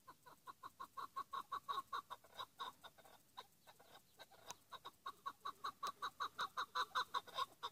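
Chukar partridge calling: a fast series of short clucking notes, about six a second, in two runs with a brief pause a little over three seconds in.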